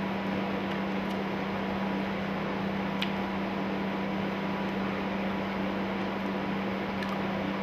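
A steady appliance hum, a low drone over an even hiss, with a faint click about three seconds in.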